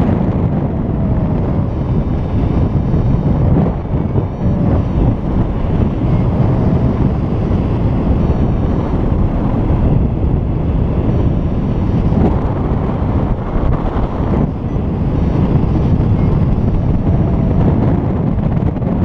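Airflow of paraglider flight buffeting the camera microphone: a loud, continuous rush of wind noise, heaviest in the low end, surging and easing in gusts.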